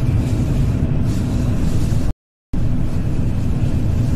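Steady low rumble of a Shinkansen bullet train running at speed, heard from inside the car. The sound cuts out completely for about half a second midway.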